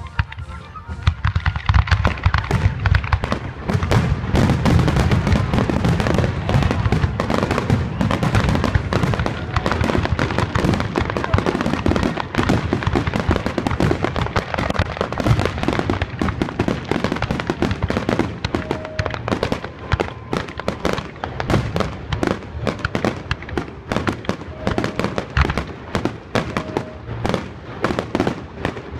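Aerial fireworks going off in a rapid, overlapping barrage of bangs and crackles. The barrage starts about a second in and is loudest over the first several seconds.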